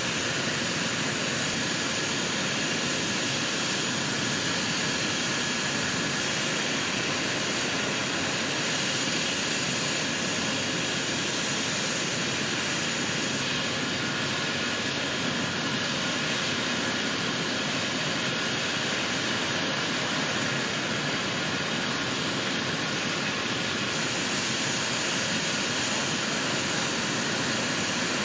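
Medical helicopter's engines running, a steady, unchanging rushing noise.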